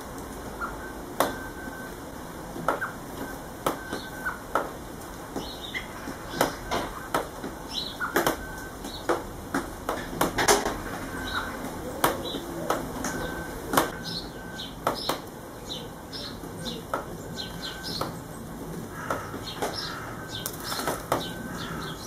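Small garden birds (house sparrow, blue tit) at a plastic tube seed feeder: irregular sharp taps and clicks from pecking at the feeder ports, landing and wing flutters, with a few short chirps.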